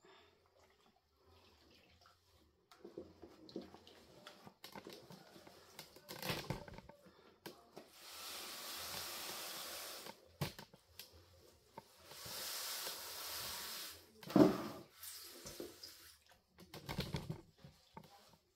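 Water streaming out of wet pap squeezed in a cloth pillowcase and splashing into a basin, in two steady runs of about two seconds each, between squelching and handling of the wet cloth. One louder thump comes just after the second run.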